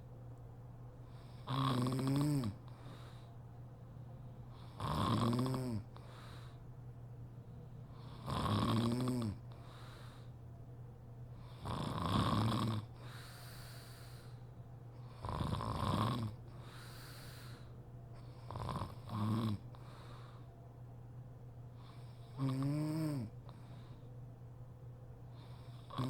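A sleeping woman snoring. Each snore is pitched, rising and falling in pitch, and comes about every three and a half seconds, about seven in all. One of them is broken in two.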